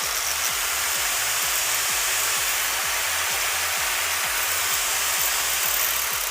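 Hitachi 4-inch, 600 W angle grinder fitted with a wall-cutting blade, switched on and running steadily at full speed with no load on it.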